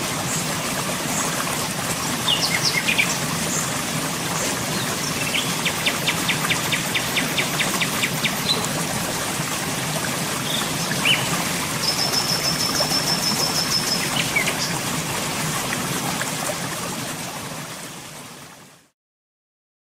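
Birds calling over a steady rushing background: scattered short chirps, a rapid rattling trill about five seconds in and a high trill around twelve seconds in. The sound fades out near the end.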